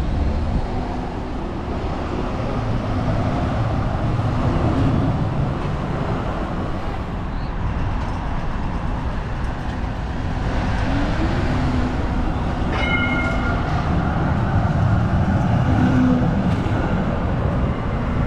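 Melbourne A1-class tram running along street track, with its rolling and motor noise mixed with road traffic in a steady rumble. A short high pitched tone sounds about two-thirds of the way through.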